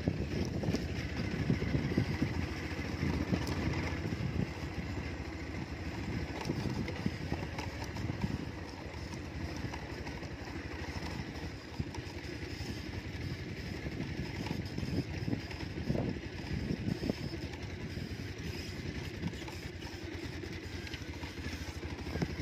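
Motorcycle engine running steadily at low speed, heard from the rider's seat while riding along a rough dirt track.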